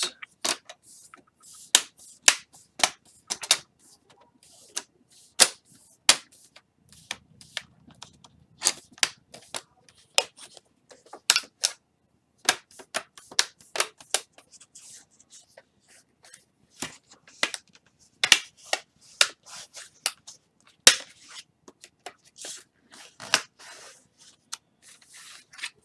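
Irregular sharp clicks and light plastic knocks, dozens of them, as a replacement laptop LCD panel is handled and pressed into the screen lid.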